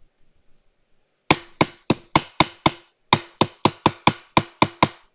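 Fingers tapping on the white plastic top shell of a Xiaomi Mi Router 4C, in two quick runs of about six and then eight taps, roughly four a second, each with a short hollow ring.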